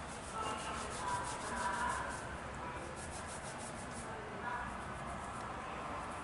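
Fingers rubbing through wet hair and massaging the scalp during a salon hair wash, a steady rubbing made of quick repeated strokes.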